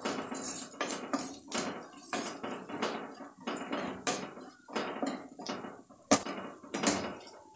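Wooden spatula stirring food in a kadhai, scraping and knocking against the pan about twice a second, with one sharper knock about six seconds in.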